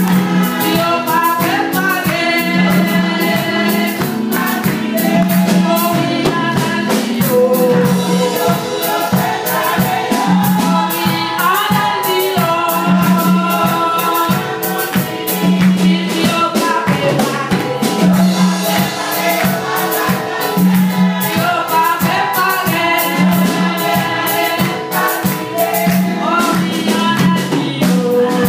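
Gospel singing in church: a woman leads through a microphone with others singing along, over a steady beat and a repeating bass line.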